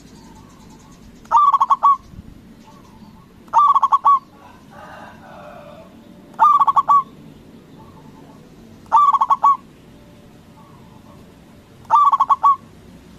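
Zebra dove (perkutut) song: five short bursts of rapid, clipped cooing notes, one every two and a half to three seconds.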